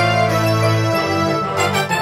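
Background music: held keyboard-like chords that change about every second.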